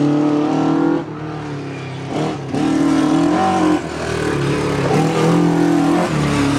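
Rally car engine revving hard on a gravel stage. Its pitch climbs and drops back several times, as on gear changes.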